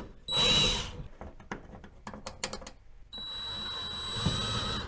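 Cordless drill driving screws through a metal microwave mounting frame into the wall studs. A short burst of the motor's whine comes first, then about two seconds of scattered clicks and knocks. The drill then runs steadily for nearly two seconds and stops near the end.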